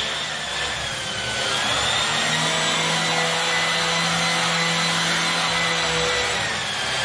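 Vacuum cleaner running steadily over carpet, a rushing noise with a motor whine that drifts slightly up and down in pitch.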